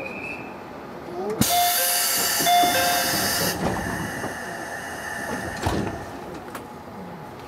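Compressed air hissing loudly from a JR local train stopped at a station, starting suddenly about a second and a half in and lasting about two seconds, with a few short tones heard through it. A single knock sounds near the end as the hiss dies away.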